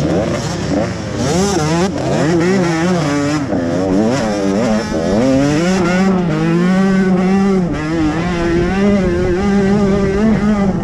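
Dirt bike engine revving while being ridden on a motocross track, its pitch rising and falling again and again with the throttle.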